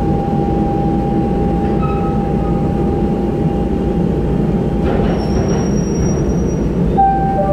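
Interior ride noise of a SuperVia Série 2000 electric multiple unit car running on the track: a steady low rumble of the wheels and running gear with a steady whine over it. A few brief high squealing tones come in the middle, and near the end several tones step down in pitch.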